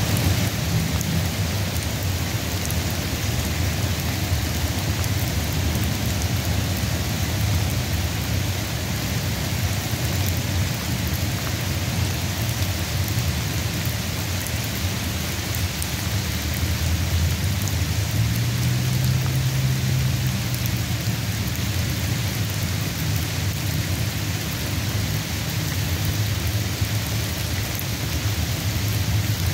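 Steady rain falling, an even hiss with a continuous low rumble underneath that swells slightly about two-thirds of the way through.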